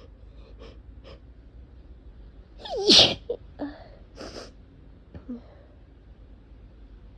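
A person sneezes once, loudly, about three seconds in: a falling-pitched intake of breath ending in a sharp burst. It is an allergic sneeze brought on by cat allergy, followed by a few fainter short breaths or sniffs.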